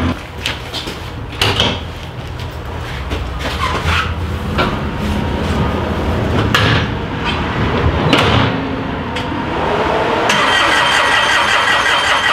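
Bobcat skid-steer loader's diesel engine starting and running, with several sharp knocks and clanks. Near the end a steady high-pitched whine joins in.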